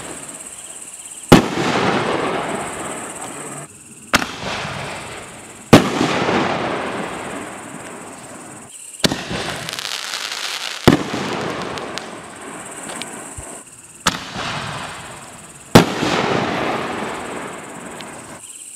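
Epic Fireworks Plasma Torch reloadable aerial shells being fired from mortar tubes. Four times, a smaller launch thump is followed about one and a half to two seconds later by a loud sharp break high in the air, and the noise dies away over the next few seconds.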